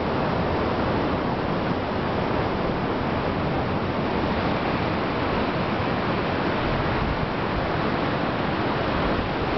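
Steady rush of ocean surf breaking along the beach, an even noise with no distinct waves standing out.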